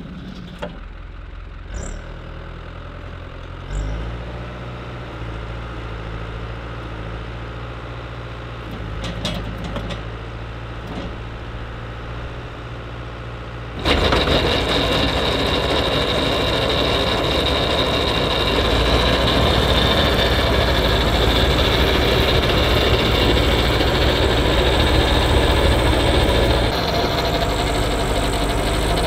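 New Holland L85 tractor's diesel engine idling, with a few light clicks and a step up in engine sound about four seconds in. About halfway through, it switches abruptly to a much louder, steady mechanical noise with a high whine: the tractor working with its PTO-driven two-stage snowblower throwing snow.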